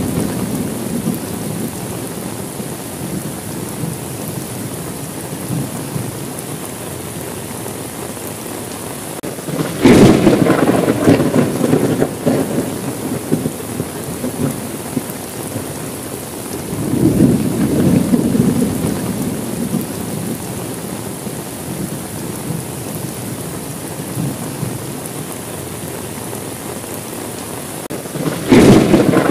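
Steady rain with thunder over it. A sudden loud thunderclap comes about a third of the way in and rolls off over a few seconds, a softer rumble swells up and dies away just past halfway, and another sudden clap breaks near the end. The tail of an earlier rumble is fading at the start.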